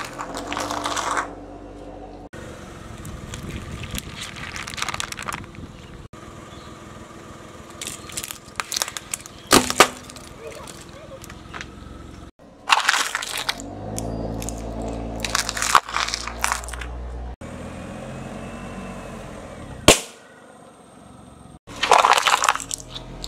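A car tyre slowly rolling over and crushing candies, plastic lighters and paper cups in a string of short clips: bursts of crackling and crunching with sharp snaps, one especially sharp crack about ten seconds in. The car's engine hums low underneath.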